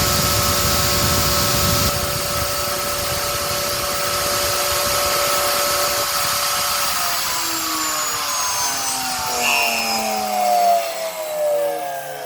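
CNC milling machine's spindle whining at a steady pitch over a rougher rumble. The rumble eases about two seconds in. From about seven seconds in the whine falls steadily in pitch as the spindle spins down.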